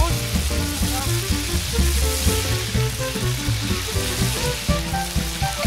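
Rabbit pieces sizzling as they fry in oil in a wide paella pan, a steady hiss, over background music with a bass line.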